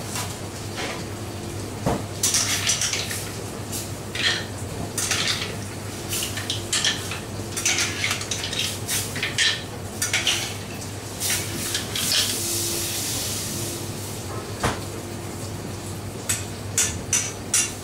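Cooked mussel shells clattering against a stainless steel pan and plate as they are spooned out, with a metal spoon scraping and knocking on the pan, in many short irregular clinks. A steady low hum runs underneath.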